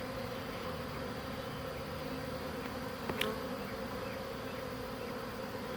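Honey bee swarm buzzing: a steady hum of many bees, with one faint click about three seconds in.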